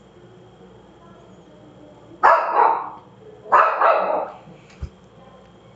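A dog barking twice, about a second and a half apart, each bark a quick double. A short low thump comes shortly after the second bark.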